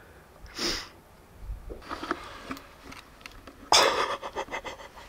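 A hunter's sharp sniff about half a second in, then a few faint clicks, and near the end a loud burst of rustling and crackling from close movement or handling.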